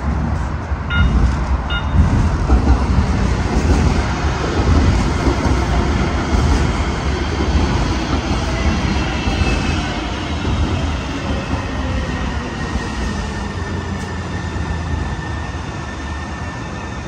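Sound Transit Link light rail train running past on an elevated track, a loud low rumble of wheels on rail that swells over the first few seconds and then eases. Two short high beeps come about a second in, and a thin high whine that dips slightly in pitch runs through the second half.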